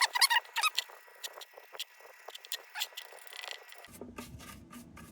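Squeaky rubbing and light scraping on a steel lantern as boiled linseed oil is worked onto it, with scattered small taps. About four seconds in, a low steady background noise comes in.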